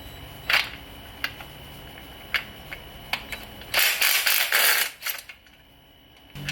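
Hand tools at work on a motorcycle frame: a few sharp metal clicks, then a louder rasping, ratchet-like noise lasting about a second, a little past halfway.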